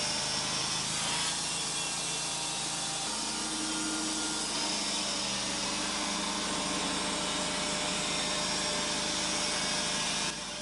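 Wood-Mizer band sawmill running its blade through a western red cedar log: a steady sawing noise over the mill's motor, its low tone shifting about three seconds in. The sound drops off slightly near the end.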